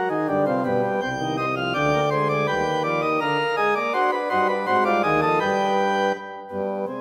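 Organ playing a slow polyphonic passage, several sustained voices moving together. About six seconds in the chord breaks off briefly and the playing resumes more softly.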